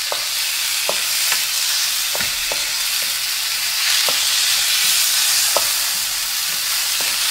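Sliced onion, garlic and tomato sizzling in hot oil in a metal pan, stirred with a wooden spatula that scrapes and knocks against the pan about once a second.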